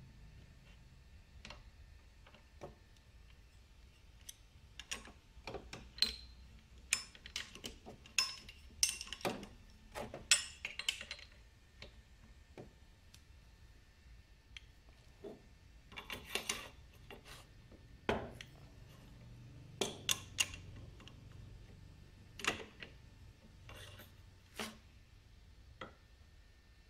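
Irregular sharp metallic clinks and clicks of a socket wrench and pulley-holding tool against a scooter's CVT drive pulley as its nut is tightened.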